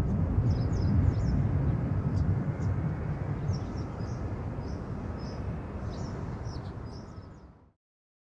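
Low rumble of a departing Boeing 747-400 freighter's four jet engines as it climbs away, slowly fading, with small birds chirping now and then. The sound cuts off abruptly near the end.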